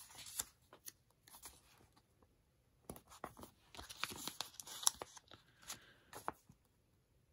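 Hands handling paper planner pages and stickers: soft rustles, taps and small peeling sounds in two clusters, with a quiet pause of about a second between them.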